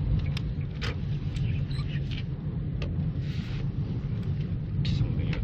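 Steady low engine and road rumble inside the cabin of a moving 2012 Kia Morning, with a few faint clicks and a brief hiss about three seconds in.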